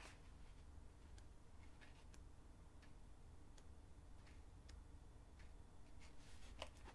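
Near silence with faint, irregular light ticks and clicks from a 12x12 scrapbooking paper pad as its pages are handled and turned, over a low steady room hum.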